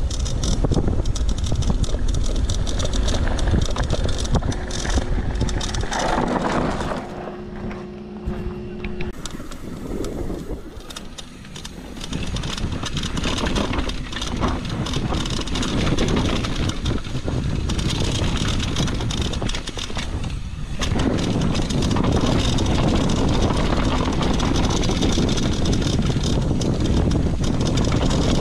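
Mountain bike descending a bike-park trail: wind rushing over the microphone and tyres and frame rattling over dirt. The noise eases off for a few seconds about seven seconds in, then picks up again.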